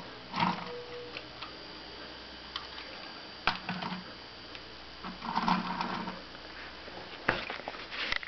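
Clockwork spring mechanism of an antique Lehmann tinplate wind-up toy ticking, with scattered sharp tin clicks and short clatters.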